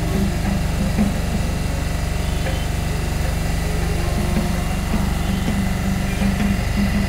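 A small engine running steadily with a continuous low hum.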